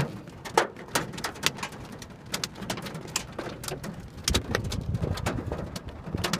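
Dime- to quarter-sized hailstones pelting a car's roof and glass, heard from inside the car: a rapid, irregular patter of sharp clicks and knocks over a low rumble.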